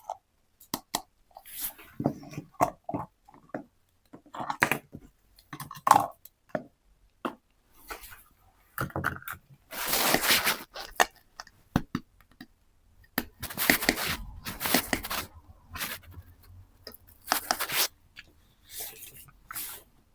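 Plastic toy pieces and packaging being handled: irregular clicks, taps, scrapes and rustling, with a few longer rustling bursts around the middle and later on.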